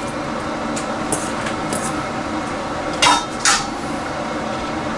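Metal cooking utensil clinking against a stew pot while vegetables are added: a few light taps, then two sharp clinks about three seconds in, half a second apart, over a steady background hiss.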